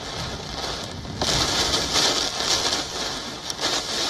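Torrential rain pouring down, a dense hiss that surges louder about a second in, dips briefly after three seconds and picks up again.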